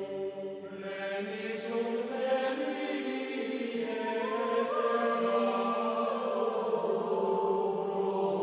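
Background vocal music of chanting voices in long, slowly shifting held notes, growing fuller about a second in.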